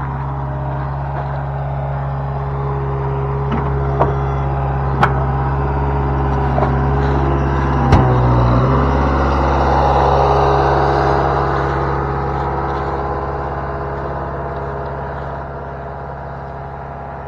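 Diesel engine of heavy earthmoving equipment running steadily, with a few sharp metallic clanks, about 4, 5 and 8 seconds in. The engine sound grows slightly fainter over the second half.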